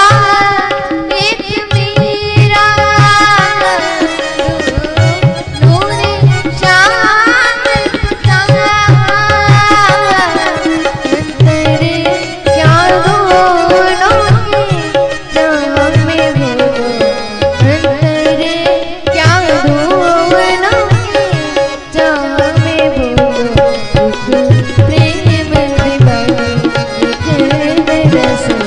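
Indian classical-style music: tabla beating a steady rhythm under a melodic line that slides and ornaments in pitch, over a held steady drone note.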